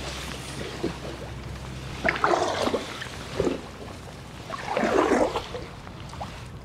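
Paddle blades dipping and pulling through the water beside an inflatable packraft, at an unhurried pace. Three splashy strokes come about two, three and a half and five seconds in, over a soft wash of water.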